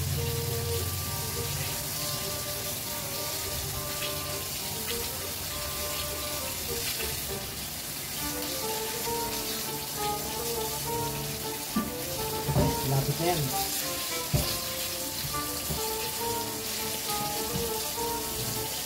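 Chicken pieces deep-frying in a pot of oil: a steady crackling sizzle, with a few knocks a little past the middle. Background music plays along.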